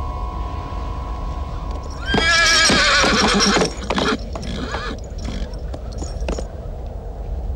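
A horse whinnies loudly for about a second and a half, starting about two seconds in, its pitch wavering, followed by scattered hoofbeats in dust over a low steady rumble.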